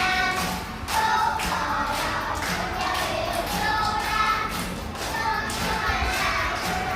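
Children singing a song over backing music with a beat.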